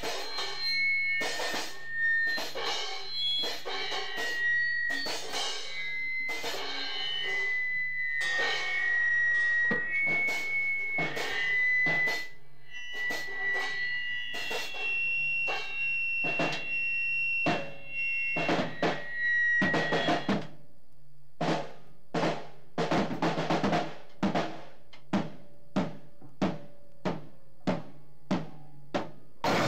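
Noisecore recording: drums hit in a dense, irregular clatter under high, held whining tones that shift in pitch, over a steady low hum. About two-thirds of the way through the tones drop out, leaving single sharp drum hits about two a second.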